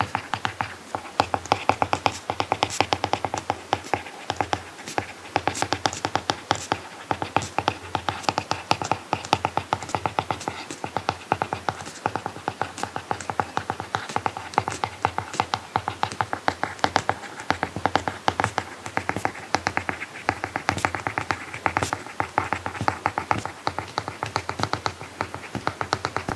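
Apple Pencil tip tapping and scratching on an iPad screen fitted with a paper-like matte protector. It makes a quick, irregular run of small clicks as someone writes by hand.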